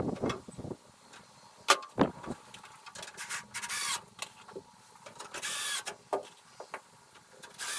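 A tape measure's steel blade pulled out and run back in twice, each a short rasping zip, with a few sharp clicks and knocks of the tape and lumber in between.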